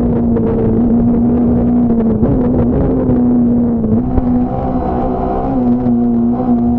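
Fiat Punto S1600 rally car's 1.6-litre four-cylinder engine heard from on board, running at high revs with a nearly steady pitch that dips and steps slightly a few times.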